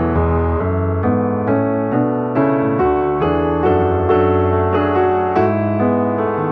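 Background piano music, a run of notes over a held bass.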